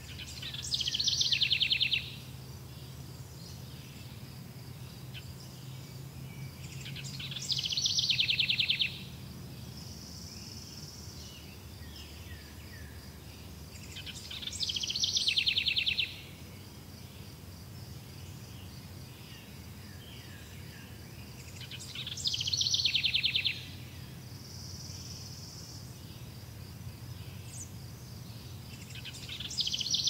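A small songbird repeats the same short high song about every seven seconds, a few quick notes running into a fast trill, over the steady chirring of insects.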